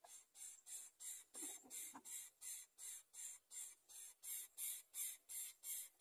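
Greater coucal nestlings begging at the nest with short rhythmic hisses, about three a second, as the adult feeds them.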